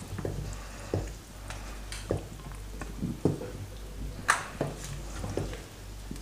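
Long wooden spoon stirring a thick, simmering ogbono-and-okra soup in a stainless steel pot: short wet strokes about twice a second, with one sharper click about four seconds in.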